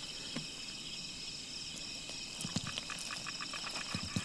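Steady high-pitched chorus of night insects calling in the forest, with a few soft clicks in the second half.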